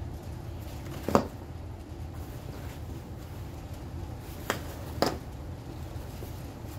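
Three sharp clicks from hand-stitching a padded backpack shoulder strap with a sewing awl, one about a second in and two close together near the five-second mark, the first the loudest, over a steady low hum.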